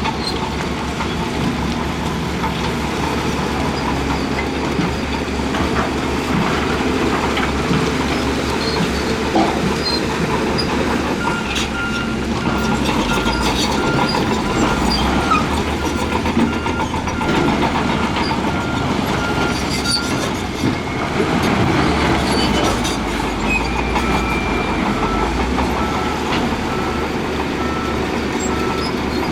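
Heavy diesel earthmoving machinery running steadily under load. A reversing alarm beeps at an even pace from about a third of the way in, pauses briefly, then starts again near the end.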